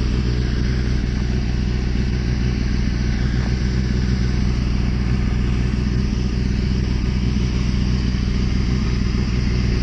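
Kawasaki ZX-10 sport bike's inline-four engine idling steadily.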